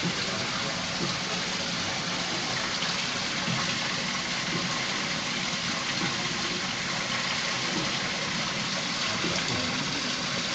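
Steady rushing background noise of an aquarium hall, like running water, holding an even level with no distinct events.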